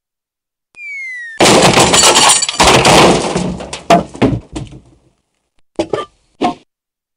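Cartoon sound effects: a short falling whistle, then a sudden loud crash with breaking and clattering that dies away over about three seconds. Three short knocks come near the end.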